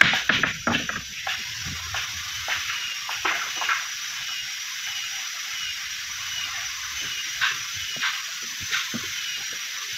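Scattered knocks and taps of hand work on a wooden boat hull, with a quick cluster of knocks in the first second and single ones later, over a steady high hiss.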